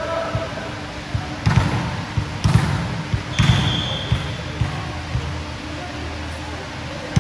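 Ball bouncing on a hard gym floor. A few loud, echoing thuds come about a second apart, followed by lighter, quicker bounces.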